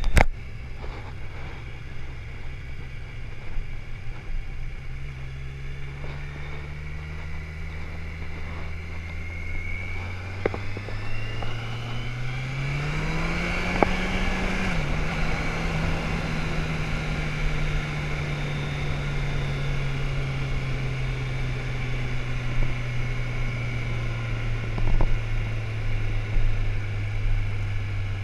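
Motorcycle engine running as the bike descends a mountain road, with a steady rush of noise behind it. The engine note climbs steadily, drops sharply about fifteen seconds in, then slowly sinks for the rest.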